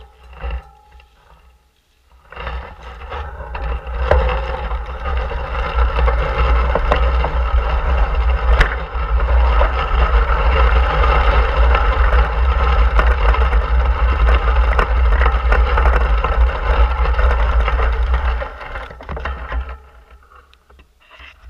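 Wind buffeting the microphone of a handlebar-mounted camera, together with bicycle tyres rolling over a gravel path. It builds about two seconds in as the bike gets under way and dies down near the end as it slows.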